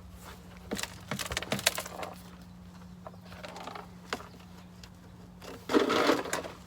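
Plastic clips clicking and knocking as a car's engine undertray is worked loose, then a louder scraping rattle near the end as the panel comes free.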